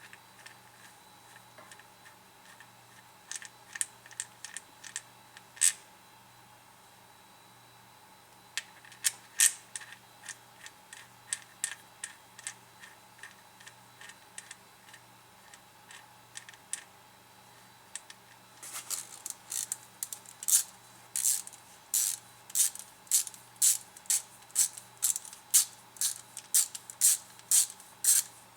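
Ratchet wrench clicking as the brake caliper bolts are run in: scattered clicks at first, then a steady run of about two clicks a second over the last ten seconds.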